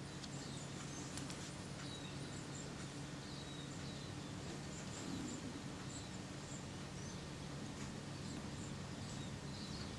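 Quiet room tone: a steady low hum under faint hiss, with faint high bird chirps in the background now and then.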